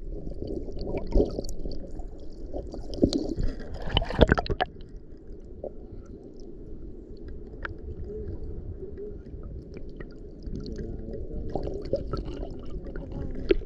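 Shallow sea water moving, heard underwater: a steady muffled low sloshing, with scattered sharp clicks and knocks, the loudest about three to four and a half seconds in.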